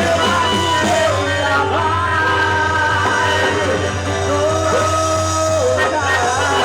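Loud festa junina music with singing, long held notes gliding from pitch to pitch over a steady low bass.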